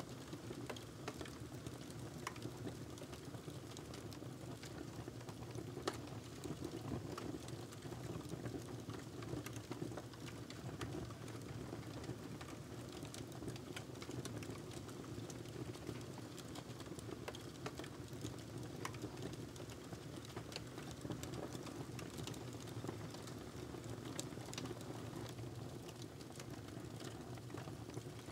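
Sparse, irregular light taps and clicks of a MacBook Air laptop's keys and trackpad, over a steady low background hum.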